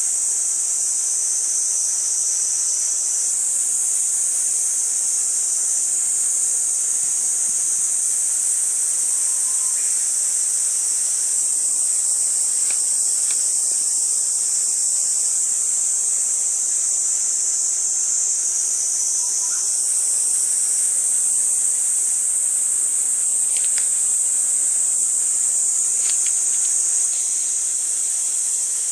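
Steady, high-pitched chorus of insects buzzing, with a few faint clicks.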